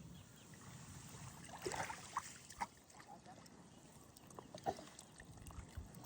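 Faint shallow seawater sloshing, with small splashes and scattered light clicks, and a couple of brief faint voice sounds.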